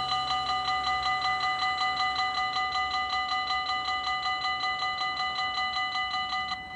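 Level-crossing warning bell ringing rapidly and evenly, about four strikes a second, as the crossing barriers lower. It stops abruptly near the end, leaving a fading ring.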